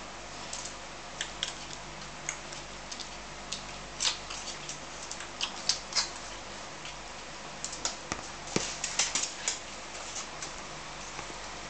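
Labrador puppies tussling on a concrete floor: irregular clicks and scuffles of claws and paws, busiest in two flurries in the middle and second half.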